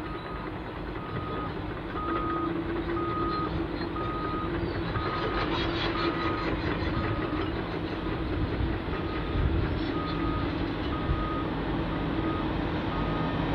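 Diesel locomotives hauling a loaded coal train approaching, their engines a steady rumbling hum that grows louder about two seconds in. Over it a reversing alarm on earthmoving machinery beeps about twice a second, pausing briefly a little past halfway.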